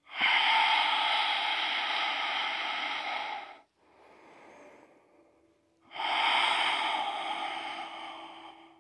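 A woman's long, audible yoga breaths: two drawn-out breaths of about three seconds each, with a softer breath between them.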